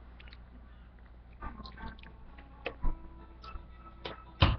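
Plastic ketchup squeeze bottle being shaken and tapped upside down: a series of irregular knocks and short squirting sputters, the loudest a sharp knock near the end.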